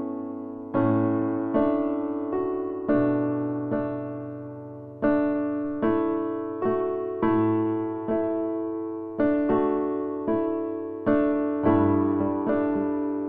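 Slow, gentle piano background music: soft notes and chords struck about once a second, each ringing out and fading before the next.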